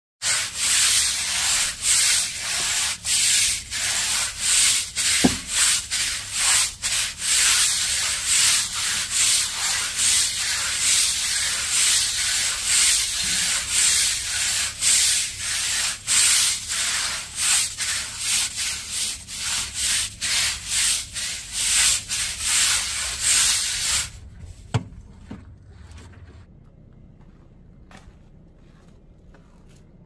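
Stiff-bristled deck brush scrubbing a wet, soapy concrete patio in quick, even back-and-forth strokes, each stroke a bristly scratch. The scrubbing stops about 24 seconds in, leaving only a few faint taps.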